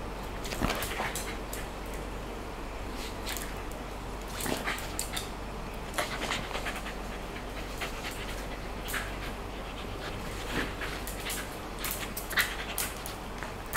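Shiba Inu panting as it play-fights with a plush shark toy, with many short clicks and scuffles scattered throughout.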